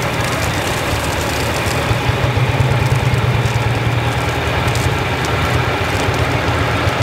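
IFA W50 fire tanker's four-cylinder diesel engine running as the truck rolls slowly past, a steady low drone that grows louder about two seconds in.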